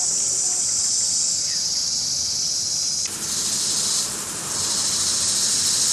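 Steady high-pitched drone of insects, joined about three seconds in by the hiss of a lawn sprinkler spraying water, which fades for a moment and then returns.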